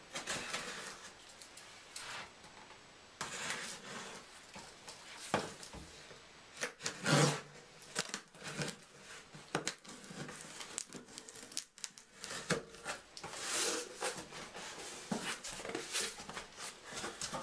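Cardboard box of a computer case being opened: tape and cardboard tearing, and packaging rustling and crinkling, in irregular swishes with scattered clicks and knocks.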